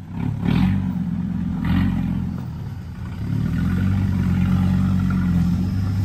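Off-road Jeep's engine driving over rough ground: two short bursts of throttle in the first two seconds, then a steady pull under load.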